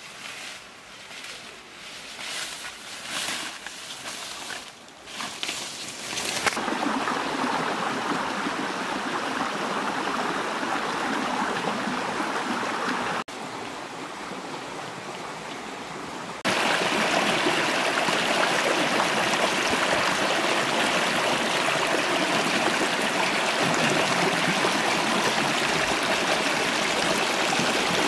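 A few rustling footsteps through grass, then the steady rush of a small rocky stream running. The water gets clearly louder a little past halfway.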